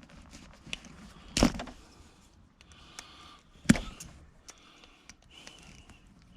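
Handling noises from hands-on work: scattered light clicks and rustling, with two sharp knocks, one about a second and a half in and a louder one nearly four seconds in.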